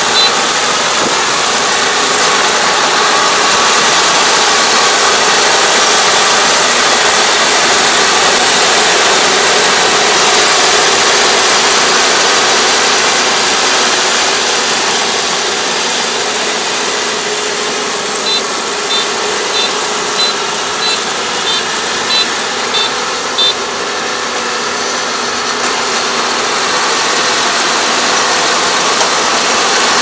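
Yanmar ER470 crawler combine harvester running under load as it cuts rice: a steady, dense engine-and-machinery din. Just past the middle comes a run of short, evenly spaced high beeps.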